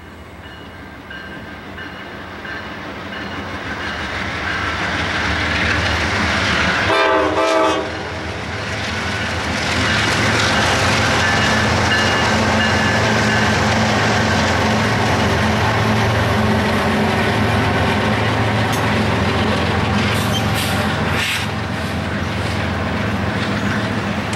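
Norfolk Southern freight train led by GE C44-9W and ES44AC diesel locomotives approaching and passing close by. The locomotives' engines grow steadily louder, with one short horn blast about seven seconds in. The engines then rumble past, followed by double-stack intermodal cars rattling and clattering over the rails.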